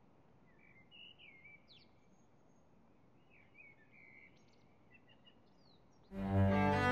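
Faint, scattered bird chirps and short whistled notes. About six seconds in, loud bowed-string music led by a cello comes in.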